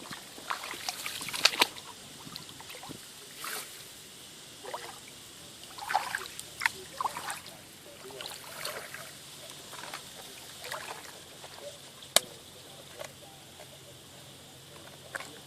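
Water splashing and sloshing in irregular bursts, with one sharp click about twelve seconds in.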